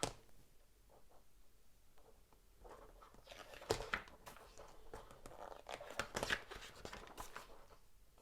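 Paper pages of a rules booklet being turned and handled: several short rustles of page flips, the loudest a little under four seconds in and around six seconds in.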